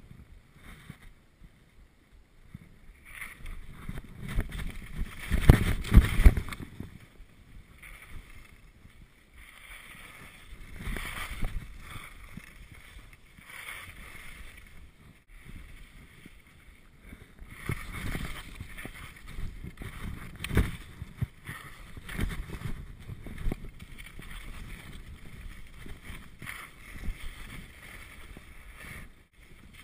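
Skis scraping and hissing over tracked, cut-up snow in irregular swells with each turn; the loudest, deepest scrape comes about five to six seconds in.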